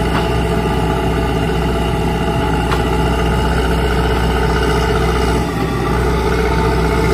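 Kobelco SK130 excavator's diesel engine running steadily, with a brief dip in level about five and a half seconds in.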